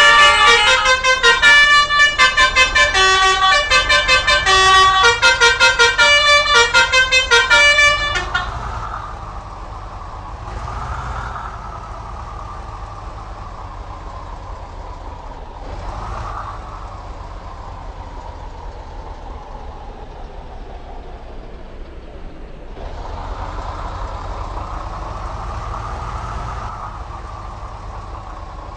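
Bus 'telolet' multi-trumpet air horn playing a fast multi-note tune, loud, for about eight seconds before it cuts off. Engine and traffic noise follows, with a few swells as vehicles go by.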